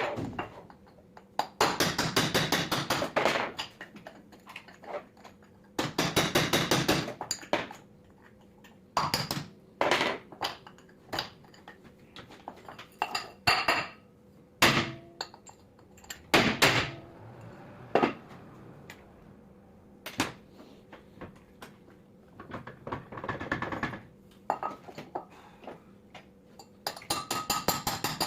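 Metal-on-metal clinking and tapping as tools and starter parts are handled and struck. There are several runs of quick repeated taps, about 2 s, 6 s and near the end, with single knocks and clinks between them.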